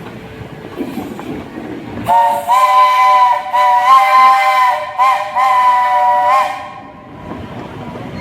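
Steam locomotive's chime whistle blowing a long chord of several notes at once. It starts about two seconds in and lasts about four seconds, with a few brief catches in the blast. A low rumble of the train comes before and after it.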